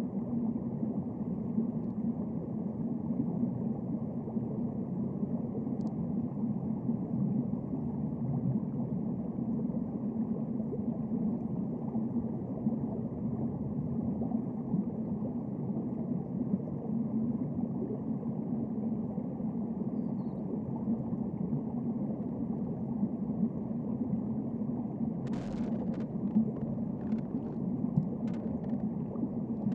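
Steady low underwater rumble, the sea as heard by a submerged camera. A few sharp clicks and knocks come in near the end.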